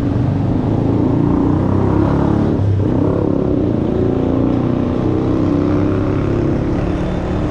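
A vehicle engine idling steadily and loud at close range.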